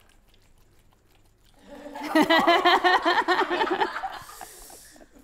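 A burst of laughter lasting about two seconds, in quick repeated pulses, after a stretch of faint soft clicking.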